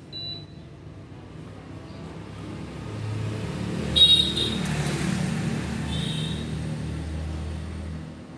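Sunhouse induction cooker running with a pot of water on it, its fan and a low hum growing louder from about three seconds in as it heats. A short beep from the control panel at the start, and a metallic clink with brief high ringing about four seconds in as the steel pot is touched.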